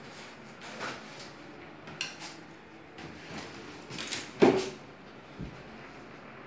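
Tools and stone pieces being handled and set down on a stone tub deck: a scattered series of short, hard knocks and clinks, the loudest about four and a half seconds in.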